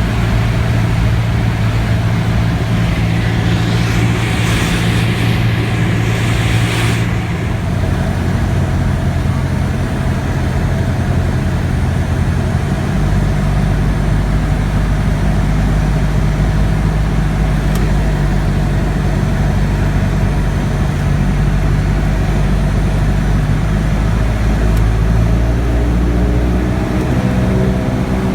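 Cessna 172's piston engine and propeller droning steadily, heard inside the cockpit; its low tone shifts about halfway through, as with a power change on approach. A brief hiss rises over it a few seconds in.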